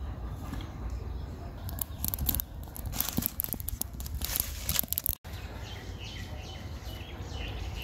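Irregular crackling and rustling of dry leaf or straw fuel in a wood-fired clay stove as it is lit, densest from about two to five seconds in. After a brief cut, faint bird chirps.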